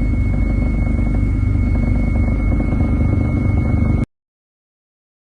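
Steady, loud engine rumble with a constant high-pitched whine over it, cutting off abruptly about four seconds in.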